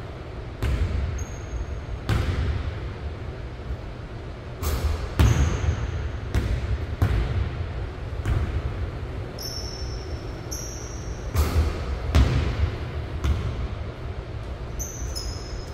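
A basketball bouncing on a hardwood gym floor, single bounces about a second apart, each with an echo from the big hall. A few short, high-pitched squeaks come in between.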